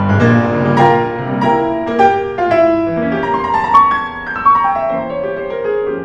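Steinway grand piano played: chords and melody notes struck about every half second, the line stepping down in pitch and growing softer near the end.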